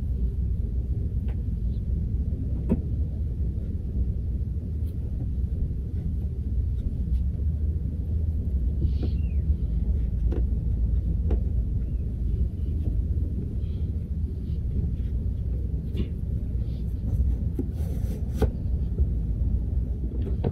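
Steady low rumble, with scattered small clicks and knocks of things being handled.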